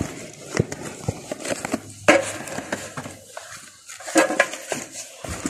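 Light clicks, taps and rustling of a boxed thermostat being handled, with louder scraping noises about two seconds in and again about four seconds in.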